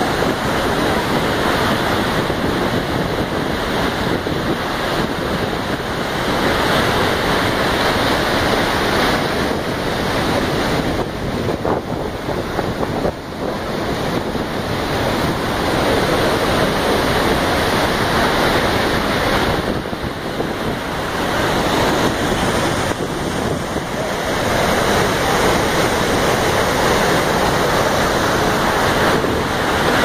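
Steady roar of Iguaçu Falls, heavy water pouring over the cliffs and churning in the river below, with wind noise on the microphone.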